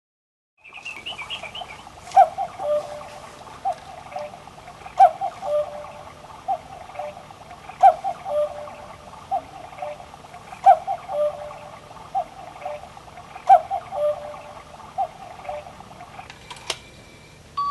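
Quartz cuckoo clock sounding its hourly cuckoo call: a recorded two-note cuckoo repeated about every second and a half, with a sharp mechanical click on every other call as the wooden bird moves in its doorway. The calls are the lead-in to the hourly melody.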